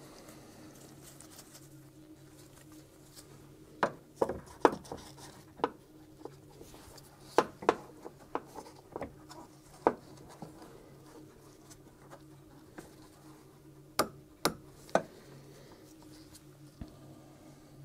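Irregular sharp clicks and light knocks from hands working hemostat clamps and plastic fittings around a coolant tank and its hoses, in two clusters, over a faint steady low hum.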